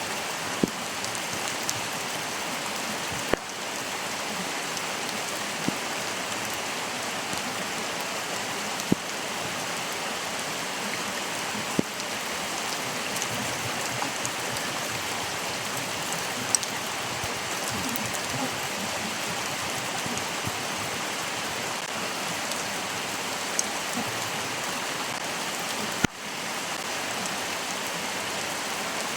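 Stream water flowing steadily as a continuous rushing hiss, with scattered sharp drip-like clicks. The sound dips briefly twice.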